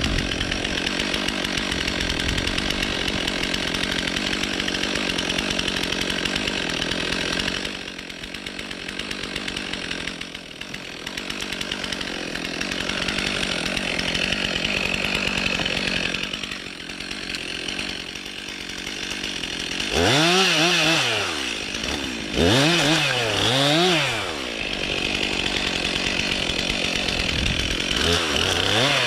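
Stihl MS 362 C two-stroke chainsaw running at high speed as it cuts birch wood, easing off briefly twice. About two-thirds of the way through it revs up and down twice, louder, and once more near the end.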